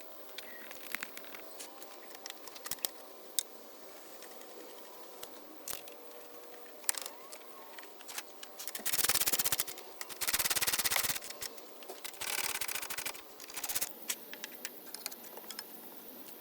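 Scattered clicks and light taps of hand tools on car parts, then four bursts of very rapid clicking, each about a second long, like a ratchet or similar tool being worked.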